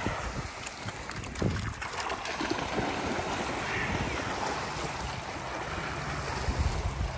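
Golden retriever splashing into the sea and swimming out through the water, with wind buffeting the microphone.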